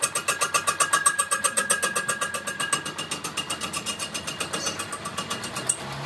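Metal lathe turning an aluminium alloy wheel rim, the cutting tool scraping the spinning rim. It makes a rapid even pulse of about seven or eight a second with thin high ringing tones, easing a little in the second half.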